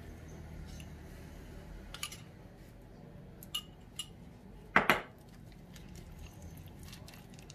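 A metal spoon clinking against a ceramic bowl of marinade: a few light clinks, then a sharp double clink about five seconds in.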